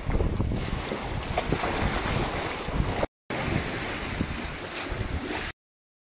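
Seawater rushing and splashing, with wind on the microphone. The sound cuts out briefly about three seconds in and stops near the end.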